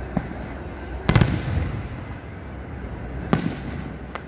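Aerial fireworks going off: a loud cluster of bangs just over a second in and another sharp bang a little after three seconds.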